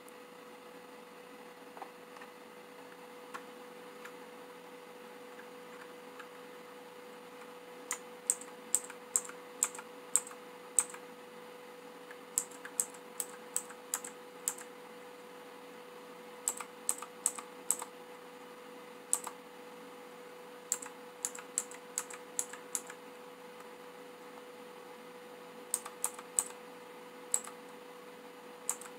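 Rizum Z15 mechanical keyboard with optical blue clicky switches, keys pressed in short runs of sharp clicks with pauses between them, starting about a quarter of the way in. A steady faint hum runs underneath.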